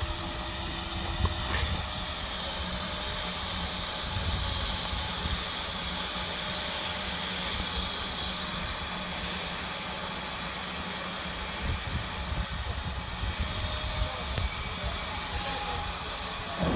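GWR 66xx class 0-6-2 tank steam locomotive hissing steam as it pulls away from the station, over a low rumble. The hiss swells for a few seconds in the middle and then settles back.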